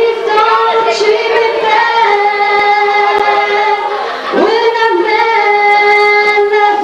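A high singing voice holding long, steady notes of several seconds each, with a swoop down and back up between them about four seconds in, over music.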